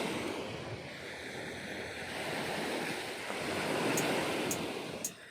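Sea waves washing onto the shore, a rushing noise that swells and eases, with a few sharp high clicks near the end.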